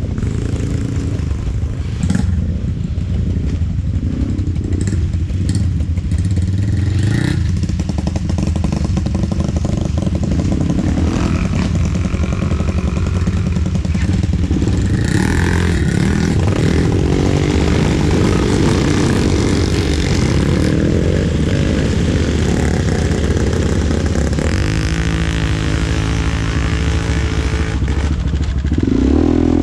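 ATV engine running steadily under way, loud and continuous, with the revs rising and falling near the end.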